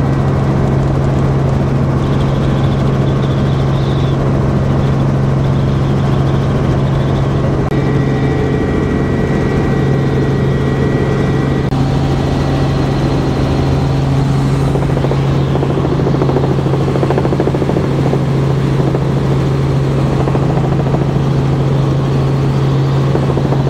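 Helicopter engine and rotor heard from inside the cabin in flight: a loud, steady drone with a strong low hum. A faint higher whine joins in for a few seconds about a third of the way in.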